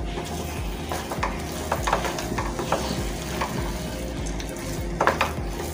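A spatula stirring and mixing thick suji halwa with mawa and dry fruits in a nonstick kadai on the flame: a steady soft scraping and churning, with short taps and scrapes against the pan every second or so.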